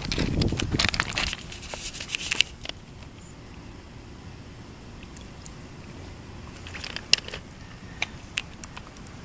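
Rustling and crackling of close handling on the microphone for about the first two and a half seconds, then a quiet background with a few scattered sharp clicks.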